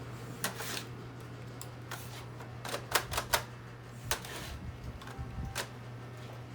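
Irregular sharp clicks and taps of hard plastic printer parts being handled, including a quick cluster of four about three seconds in, over a steady low hum.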